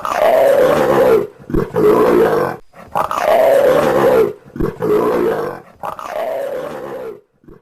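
An animal giving a series of rough, noisy roars, about five in a row, each about a second long and falling in pitch.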